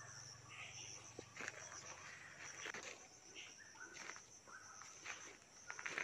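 Faint, steady high-pitched insect chirring, with scattered footsteps and rustling of undergrowth as someone walks through vegetation.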